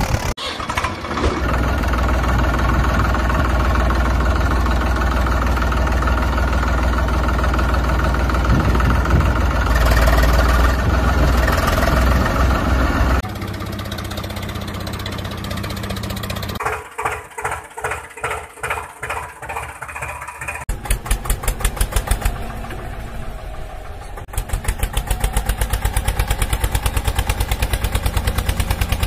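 Tractor engine running in sections that cut from one to another: steady at first, dropping in level about a third of the way through, then chugging in slow pulses, and over the last few seconds running with a fast, even chug.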